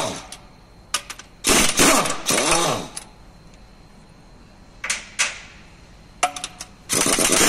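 Impact wrench run in a series of short bursts on the flywheel bolts, each burst winding down in pitch as the trigger is let go.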